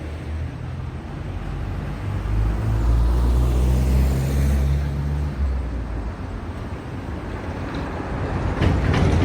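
Road traffic: a motor vehicle's low engine drone swells and fades about two to five seconds in. Near the end, another vehicle passes with a short rush of noise.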